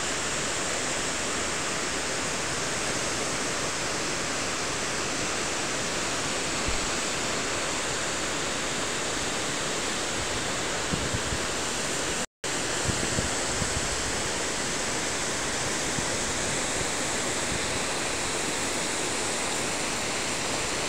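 Steady, even rush of Shōmyō Falls, a very tall plunge waterfall, pouring down without a break. A few faint low knocks sit under it, and the sound cuts out for a split second about twelve seconds in.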